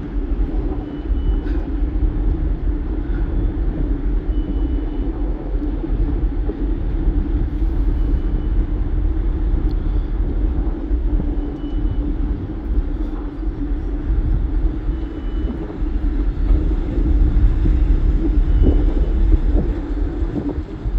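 Steady low rumble of a moving vehicle, with a faint short high beep recurring every few seconds.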